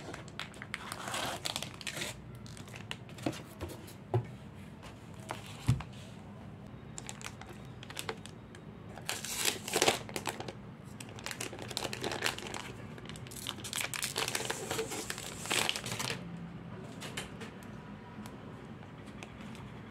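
Plastic shrink-wrap crinkling and tearing as it is pulled off a hardcover planner, in irregular bursts that are busiest around the middle. A couple of light knocks come before that.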